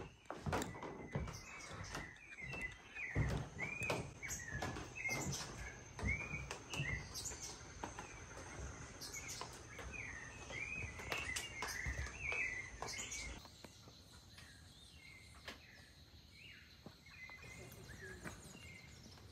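Birds chirping over and over, with scattered knocks and a low rumble of outdoor ambience. About thirteen seconds in the sound changes abruptly to a quieter background with only occasional chirps.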